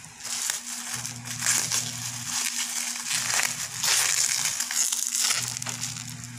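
Bubble wrap around a parcel being handled and crinkled by hand, an irregular crackling with many small clicks.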